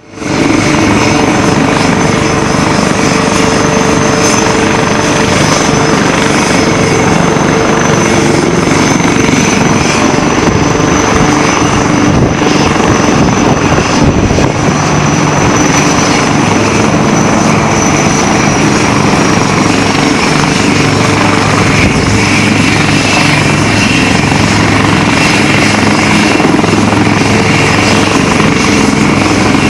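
HAL Light Combat Helicopter, with its twin Shakti turboshaft engines, hovering and manoeuvring low: steady rotor and turbine noise with a high whine running over it.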